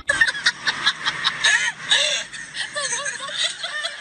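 Young women giggling and laughing in many short, quick bursts.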